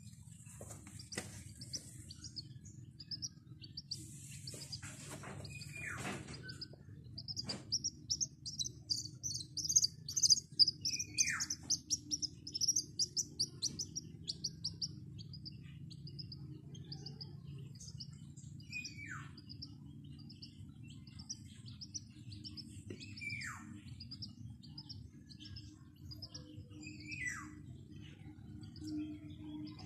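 Baby chick peeping: a fast run of short, high chirps, then single peeps that slide downward in pitch every few seconds.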